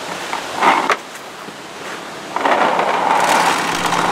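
Paintballs pouring from a plastic container into a paintball marker's hopper: a dense, continuous rattle that starts about two and a half seconds in. A brief clatter about a second in comes from the container being handled.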